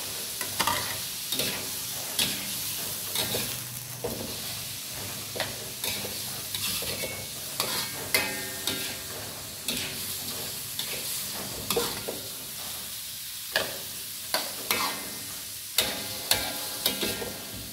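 Shrimp and squid sizzling in hot oil as they are stir-fried in a metal wok. A metal spatula scrapes and clanks against the wok at irregular intervals.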